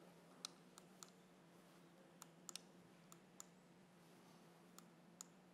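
Near silence: faint room tone with a low hum and about ten small, sharp clicks scattered irregularly, a few of them in quick pairs.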